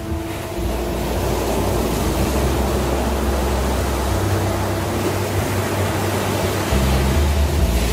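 Ocean surf: waves breaking and washing up onto a sandy beach, a steady rushing noise with a low hum underneath.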